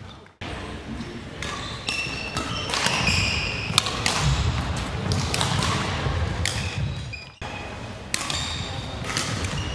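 Badminton play: sharp racket strikes on the shuttlecock mixed with squeaking shoes and footfalls on a wooden sports-hall floor. The sound cuts out abruptly twice, just after the start and about seven seconds in.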